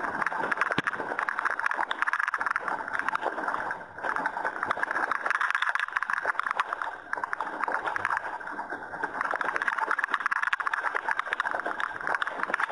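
Water rushing and splashing against the hull of an RC sailing yacht as it sails, picked up close by a small camera mounted on its deck; a steady crackly rush that dips briefly about four seconds in.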